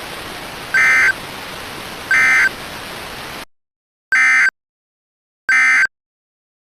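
Emergency Alert System end-of-message data bursts: short, identical buzzy digital squawks, four of them about 1.4 seconds apart, marking the close of the alert. A steady hiss under the first two cuts off suddenly about halfway through, leaving the last bursts on silence.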